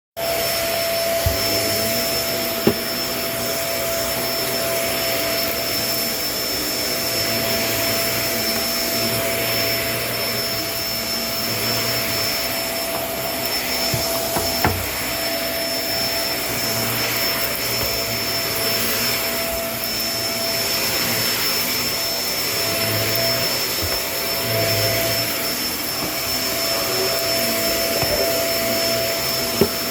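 Kenmore vacuum cleaner running steadily, a constant rushing drone with a steady whine in it. A few sharp clicks break through now and then.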